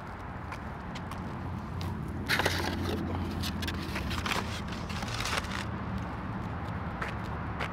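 Crunching, crackling noise from about two seconds in to about five and a half seconds in, over a steady low outdoor hum.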